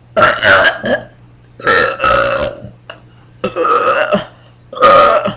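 A girl burping four times in a row, each burp loud and under a second long, brought on by drinking root beer.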